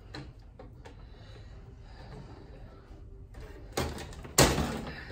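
Wire wreath forms handled on a tabletop: light clicking and rustling, then a few louder clanks and scrapes of the metal rings near the end.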